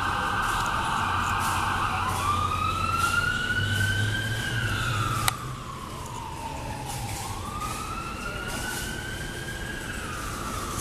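A siren wailing, its pitch rising and falling slowly over several seconds at a time. A sharp click comes about halfway through, after which the whole sound is quieter.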